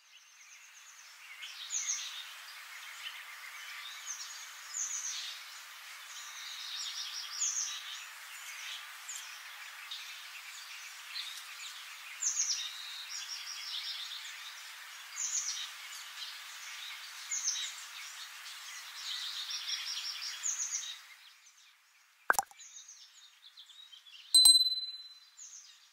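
Birds chirping and trilling over a steady hiss, stopping about 21 seconds in. Near the end a sharp click, then a short bell ding from a subscribe-button animation.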